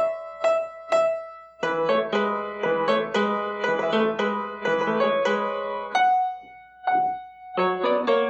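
Piano playing a slow instrumental passage of chords, thinning twice to a single note struck a few times.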